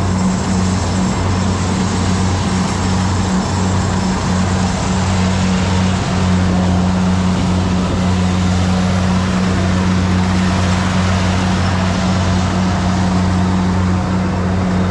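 Rice combine harvester's engine running steadily under load, a loud, constant low drone with a steady hum.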